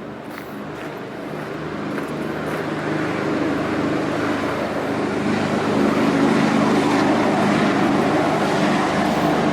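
A motor vehicle on the highway approaching, its engine and tyre noise growing louder over several seconds and then holding steady.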